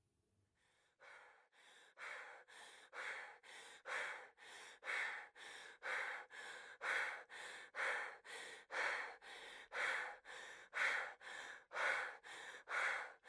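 Heavy, rhythmic breathing, in and out about once a second, that fades in over the first couple of seconds and then holds steady.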